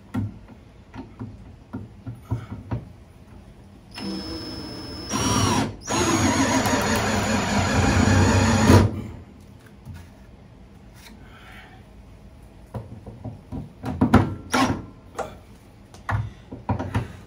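Cordless drill with a nut driver driving a lag bolt through a wall-mount bracket. It starts slowly about four seconds in, speeds up, stops briefly, then runs hard for about three seconds and cuts off. Clicks and knocks of the tool and bracket being handled come before and after.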